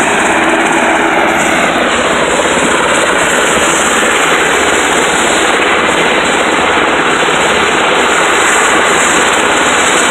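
Sikorsky S-92A twin-turboshaft helicopter running on the ground with its main rotor turning. Loud, steady turbine noise with a rapid, even blade chop.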